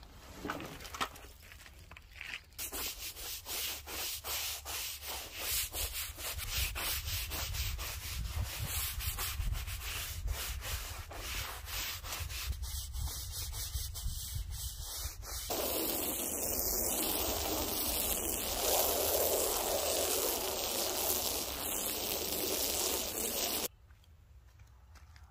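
Rubber truck-bed mat being scrubbed, soapy, in quick repeated rubbing strokes. About halfway through the scrubbing gives way to a steady rush of water from a garden hose spraying onto the mat, which stops abruptly near the end.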